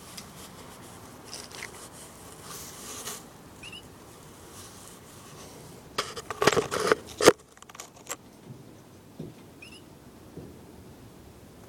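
Handling noise from a phone being moved and set down: rustling, then a burst of scraping and knocking about six seconds in, with a few faint, short, high chirps.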